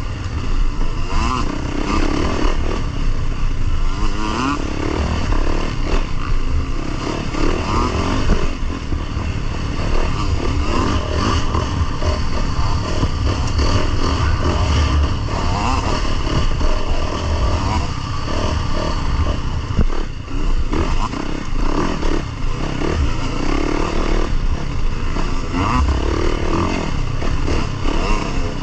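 Dirt bike engine running on a trail ride, its revs rising and falling as the rider works the throttle through the gears, with heavy wind rumble on the bike-mounted microphone.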